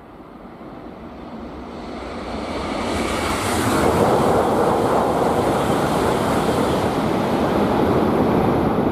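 E5 series Hayabusa Shinkansen rushing past at speed. Its noise swells over the first few seconds and stays loud as the train goes by.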